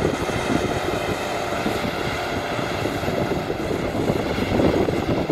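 Four-wheel-drive ute's engine running steadily at low revs as it edges across soft sand.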